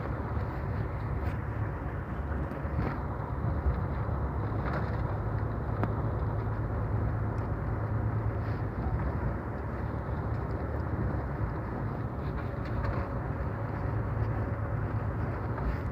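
A vehicle driving at a steady speed: continuous, even engine and road noise, low and unchanging, with a few faint ticks.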